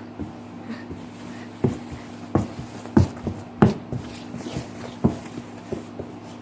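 Scattered short knocks and clicks, about a dozen, irregularly spaced and loudest about three seconds in, over a steady low hum.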